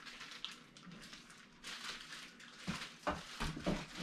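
Packaging rustling as items are handled, with a few sharp knocks about three seconds in.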